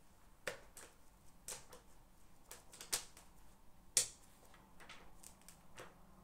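Light clicks and taps from desk work during a study session, about a dozen, irregularly spaced, the loudest two about three and four seconds in.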